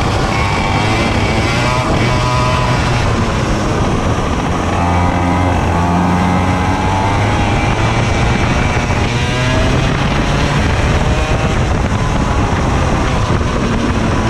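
Racing kart engine heard onboard at race pace, its pitch climbing and dropping again and again as the kart accelerates out of corners and lifts for the next one.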